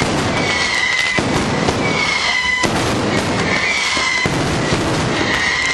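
Fireworks going off in a continuous crackling, popping barrage, with a short high whistle recurring about once a second.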